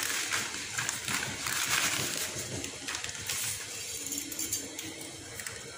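Dry spaghetti being pushed into a metal pot of boiling water: a hiss and bubbling with light crackles from the strands, growing quieter over the last couple of seconds.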